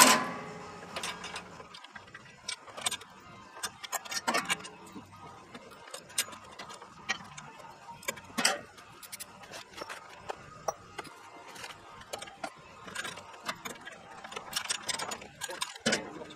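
Hand tools working bolts on a steel sawmill head: a sharp metal clink at the start, then scattered clicks and short runs of ratchet-like clicking as fasteners are turned by hand.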